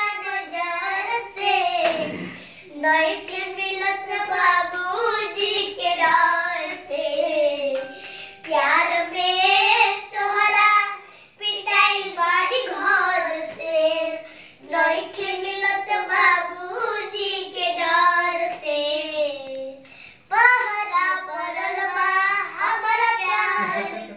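Two young boys singing a Bhojpuri song together in unaccompanied sung phrases, with short breaks between lines.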